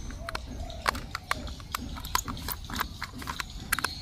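Small screwdriver and hard plastic clicking and tapping on the underside of a plastic Chuggington Wilson toy train as its battery cover is unscrewed and opened: a run of sharp, irregular clicks.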